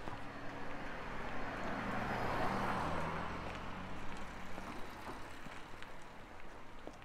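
A car drives past, its engine and tyre noise rising to a peak about two and a half seconds in, then fading away over the next few seconds.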